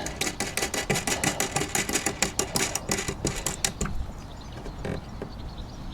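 Quick run of small metallic clicks and rattles, as a nut is spun by hand onto a bolt through a solar panel mounting bracket; the clicking stops about four seconds in, leaving a couple of single knocks.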